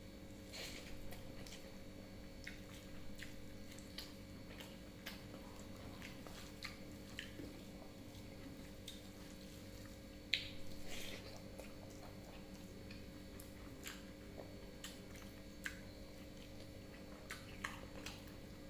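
Close-up eating sounds: wet mouth smacks and chewing of a meal of rice, dal, fried aubergine, papad and fried fish, with scattered soft clicks. One louder sharp click about ten seconds in.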